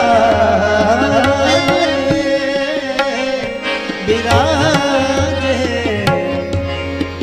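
Qawwali music between sung lines: held harmonium notes over a running tabla rhythm, with a wavering melodic phrase partway through.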